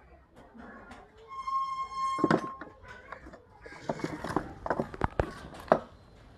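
Hand tools knocking and clattering as a car side-mirror assembly is taken apart, with several sharp knocks, the loudest clustered in the second half. About a second and a half in, an unidentified high held tone sounds for about a second.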